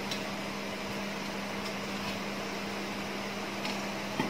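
Steady mechanical hum with a light hiss from a kitchen appliance or fan. Just before the end a stainless-steel lid is set onto a steel cooking pot with a couple of quick clinks.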